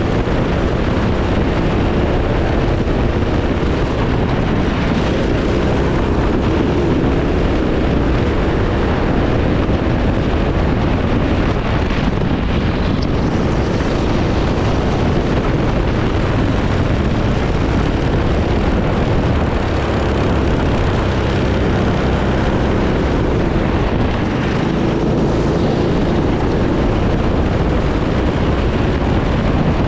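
Racing kart engine running hard at race pace, its note rising and falling a little as the driver works the throttle around the lap.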